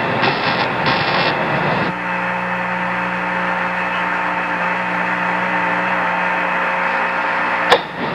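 Radio-link static from the Apollo 11 transmission. An even hiss runs for about two seconds, then settles into a steady hum of several held tones, and a single sharp click comes near the end.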